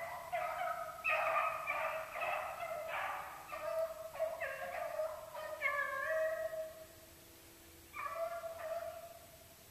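A pack of beagles baying out of sight, several voices overlapping, as hounds give when running a rabbit's track. The calls thin out about seven seconds in and pick up briefly a second later.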